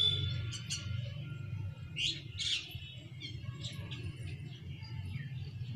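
Small birds chirping in short, scattered calls over a steady low hum.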